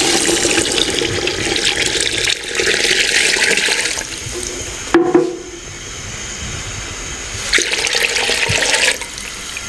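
Water poured from a jug into a clay pot of spiced mutton, splashing into the liquid as the cooking water for the stew goes in. It pours in two spells: the first stops about four seconds in, and the second comes near the end.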